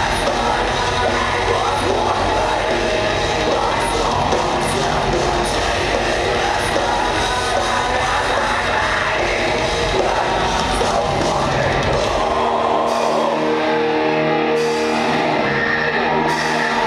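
Live heavy rock band playing: distorted electric guitars, drums, keyboard and a singer's vocals. About twelve seconds in the low end falls away, leaving long held chords.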